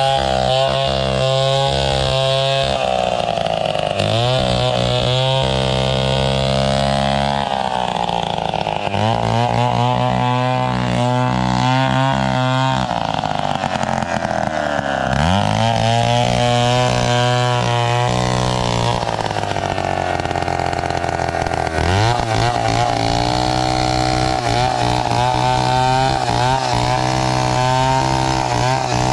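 Two-stroke chainsaw ripping a coconut log into lumber, running high and steady through each cut, its pitch falling off and climbing back about five times.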